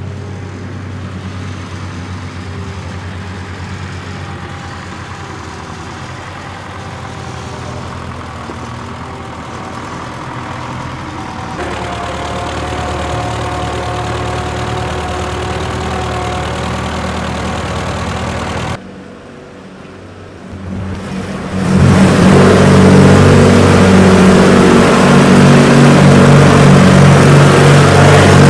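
A tractor-backhoe's engine runs steadily, stepping up in level partway through. After a sudden cut to a quieter stretch, a plate compactor starts up and runs much louder.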